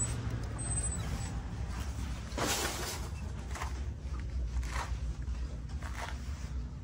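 Footsteps on a shop floor, a soft knock about once a second, over a low steady rumble, with a louder thump about two and a half seconds in.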